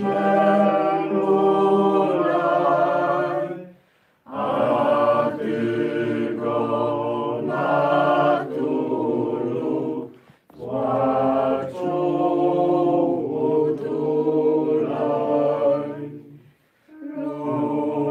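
A small group of people singing a hymn unaccompanied, in four sung phrases with short breaks between them.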